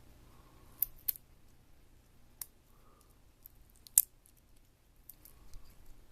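A few sharp clicks and snaps from small parts and hand tools being handled while a Palm Pilot PDA is taken apart. The loudest snap comes about four seconds in, with lighter ticks after it.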